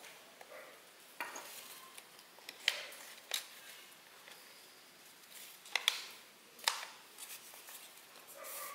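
Stiff origami paper crinkling and snapping as it is creased and bent into a paper airplane's wing folds: a handful of sharp crackles, the loudest about three and six seconds in.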